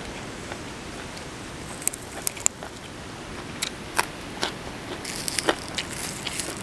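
Close-up eating sounds: a run of sharp crisp bites and crunches about two seconds in and more from about three and a half seconds, with a crackling hiss near the end as fresh greens are handled and snapped.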